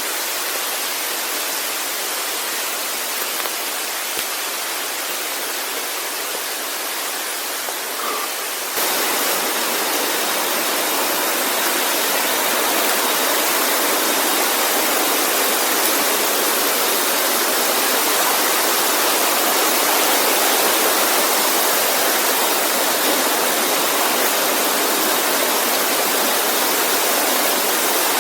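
Waterfall rushing: a steady wash of falling water that gets a little louder about nine seconds in.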